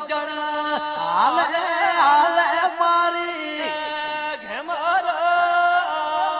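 Rabari devotional folk song (regadi): a voice sings sliding, ornamented phrases over a steady held drone.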